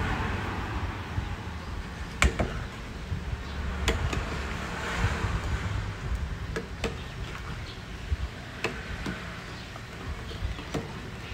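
Metal ladle stirring pumpkin pieces in a metal cooking pot of hot water, with about five sharp knocks of the ladle against the pot, over a steady low rumble.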